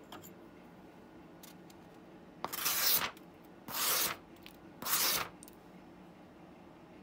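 A sheet of paper drawn across a freshly sharpened curved steel blade, slicing it: three short, scratchy swishes about a second apart.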